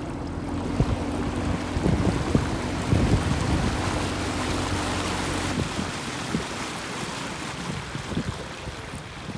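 Small boat's outboard motor running at low speed, a steady hum, with water rushing along the hull and wind on the microphone. The motor's hum drops away a little over halfway through, leaving the water and wind.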